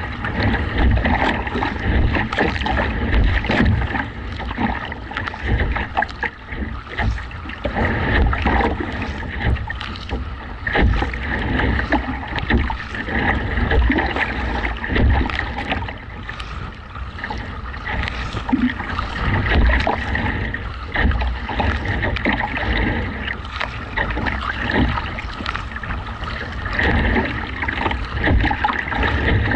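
Gusty wind buffeting the microphone with a heavy rumble, over choppy waves slapping the kayak's hull and repeated splashes of paddle strokes.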